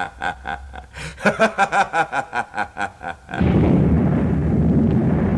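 A man's villainous laugh, a long run of quick, even ha-ha pulses. About three seconds in, a loud, steady low rumble cuts in suddenly and goes on: the cave ceiling cracking as the cavern starts to collapse.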